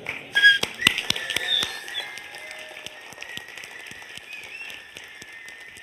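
Audience clapping while blowing 3D-printed plastic whistles: shrill whistle tones over the clapping, loudest in the first two seconds, then steadier applause.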